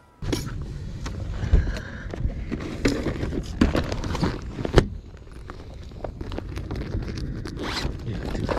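Clear plastic bags of soft-plastic fishing baits crinkling and rustling as hands rummage through them, with clicks, knocks and rubbing close to the microphone.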